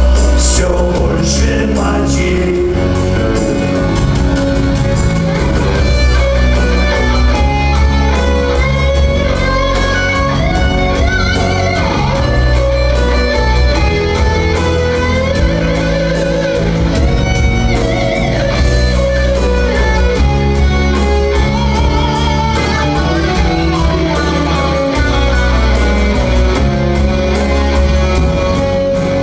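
A rock band playing an instrumental passage with no vocal line: an electric guitar of the Stratocaster type plays melodic lead lines over steady bass and a regular beat.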